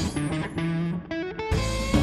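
Guitar-driven music, electric guitar over bass and drums. About halfway through the band drops out briefly, and a short run of rising notes leads it back in.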